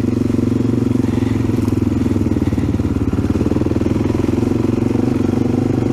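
AJP PR7 adventure motorcycle's single-cylinder engine running steadily under way on a dirt track, its rapid firing pulses holding an even pace.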